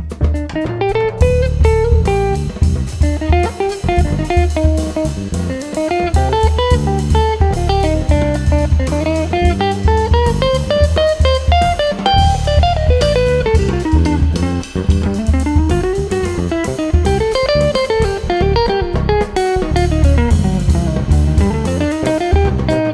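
Jazz quartet playing instrumentally: a hollow-body electric guitar plays single-note runs that climb and fall again and again, over electric bass and a drum kit.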